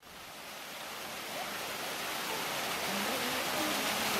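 Steady rush of running water, fading in and slowly growing louder, with faint voices in the background from about a second and a half in.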